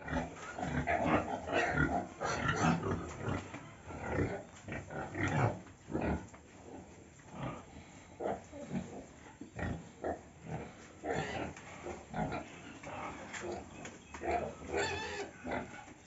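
A pig grunting repeatedly in short, irregular grunts, busiest and loudest in the first few seconds.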